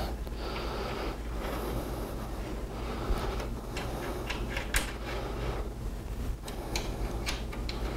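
Hand tool working the bolts of a metal roof rack as they are tightened: irregular sharp clicks and light rubbing, mostly in the second half, over a steady low hum.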